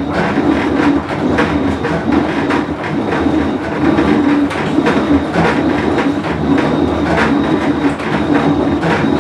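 Whirlpool Cabrio top-load washer running with a loud, continuous rumble and frequent irregular clattering knocks, the sound of a failing tub bearing.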